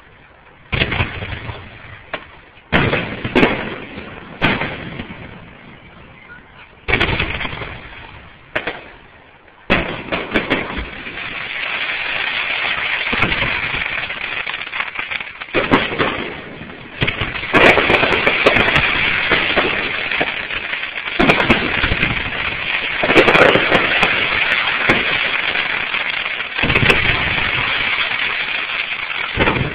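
Fireworks display: aerial shells bursting with separate booms through the first ten seconds, then a dense, continuous barrage of bangs and crackle for the rest.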